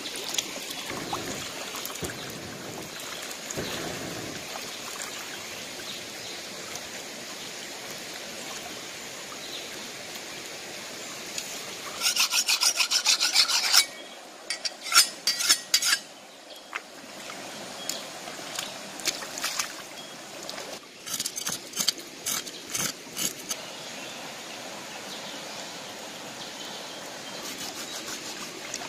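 Rapid rasping scrapes, a dense run of about two seconds a little before halfway, then scattered strokes for about ten seconds: a fish being scaled. Behind them, shallow stream water runs steadily.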